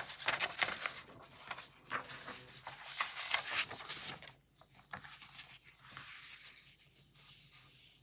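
Paper rustling and crinkling as a textbook page is turned and smoothed down, loudest for the first four seconds, then fainter handling rustles.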